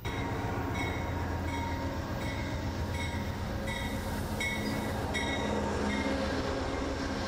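Amtrak passenger train pulling into a station: the diesel locomotive's low, steady rumble and the rolling coaches. A short ringing strike, most likely the locomotive's bell, repeats about once every 0.7 s and stops about six seconds in.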